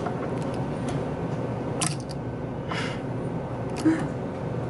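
A few short, sharp clicks and taps over a steady background hum, the loudest click about four seconds in.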